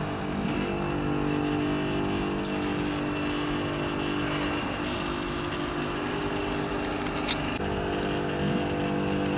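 Steady mechanical hum of rooftop air-conditioning units running, its tone stepping a few times. A few light clicks come as bungs are pushed into the compressor's pipe stubs.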